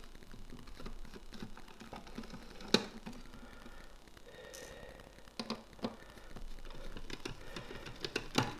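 Scattered small clicks and ticks of a precision screwdriver backing small screws out of the hotspot's case base, with the screws handled and set down on a wooden tabletop; the sharpest click comes near the middle, with a few more later on.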